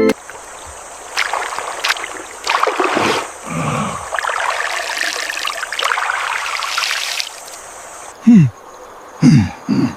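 Water splashing and trickling in uneven surges. Near the end come two or three short, loud voice sounds that fall in pitch.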